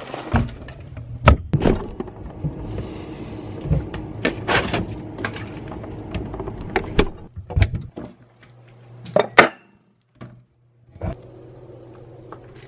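Kitchen clatter: a string of sharp knocks, taps and clicks from things being handled and set down, over a steady low hum, with a brief near-silent gap about ten seconds in.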